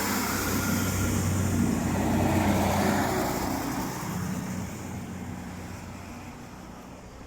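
Class 156 Super Sprinter diesel multiple unit pulling away, its underfloor diesel engines running under power. The sound swells to a peak about two and a half seconds in, then fades steadily as the train moves off.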